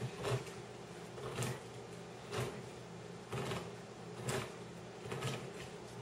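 Handheld crank can opener cutting around the lid of a metal can, a short grinding click about once a second with each turn of the key.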